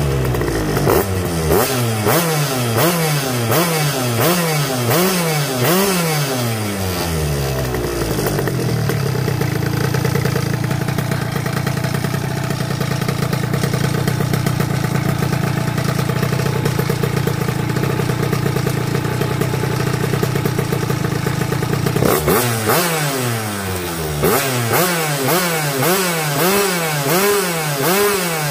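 Two-stroke Yamaha Jog scooter engine running on a STIHL chainsaw ignition, revved up and down in quick repeated blips. About eight seconds in it is held at a steady speed for some fifteen seconds, then the quick blipping starts again.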